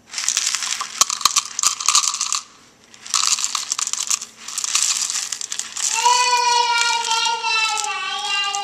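Dry Corn Pops cereal poured into a plastic measuring cup in a few bursts, a dense rattling patter of pieces. From about six seconds in, a high voice holds one long note over the pouring, sliding slowly down in pitch.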